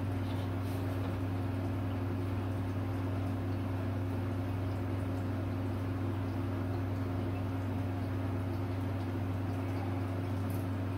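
Steady low hum of a small room's background, with a few faint light rustles of thin plastic sheet being handled.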